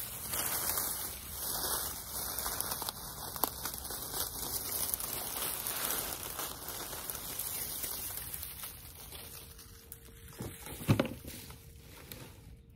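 Dry dead plant stalks and leaves rustling and crackling as gloved hands pull them up and gather them, with scattered snaps. A single louder thump comes near the end.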